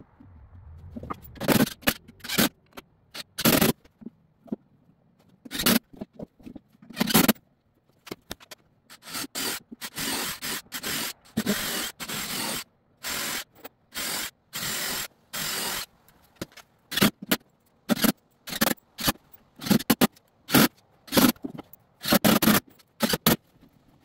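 Cordless drill/driver driving screws into pine boards in a run of short, evenly spaced bursts, with sharp knocks of wood and tools being handled before and after.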